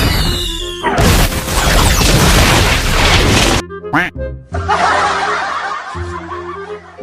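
Edited mix of music and cartoon-style sound effects in abrupt cuts: a falling whistle, a long loud crash-like burst of noise, a quick swooping glide, then a duller noisy stretch.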